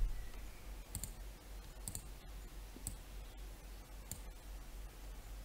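A few faint computer mouse clicks, roughly one a second, over a steady low hum.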